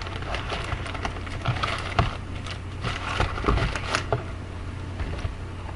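A cardboard trading-card box and its foil packs being handled: scattered rustling, taps and clicks, over a low steady hum.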